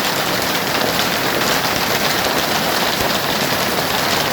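Heavy hail with rain pelting down, a loud, steady, dense patter of countless impacts.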